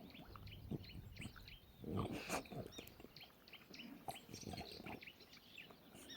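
Small birds chirping, many short quick calls overlapping, with a louder low muffled noise about two seconds in.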